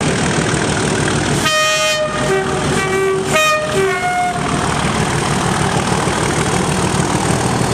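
Class 37 diesel locomotive sounding its two-tone horn in several short blasts, high and low notes alternating, from about a second and a half in to about four seconds. Underneath is the steady rumble of its engine.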